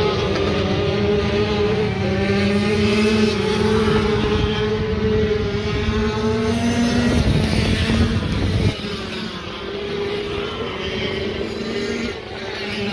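Racing motorcycle engines running hard around a flat-track oval, several bikes at once with their pitch wavering as they rev through the turn. About nine seconds in, a deep rumble underneath cuts off and the engine sound gets somewhat quieter.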